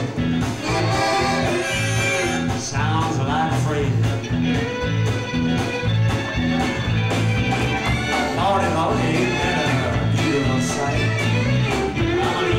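Live band playing an instrumental break: electric guitars and bass guitar over a steady beat, with a fiddle, recorded on a worn VHS tape.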